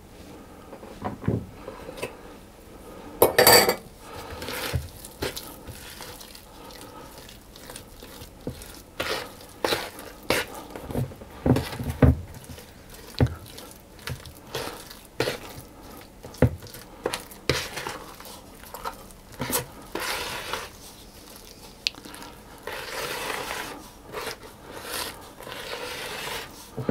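Wooden spoon stirring a thick, heavy fruit cake batter in a plastic mixing bowl: irregular knocks and scrapes of the spoon against the bowl, with a louder clatter about three seconds in.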